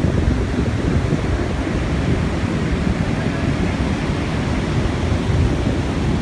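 Steady rush of wind buffeting the microphone over the wash of surf, with no distinct events.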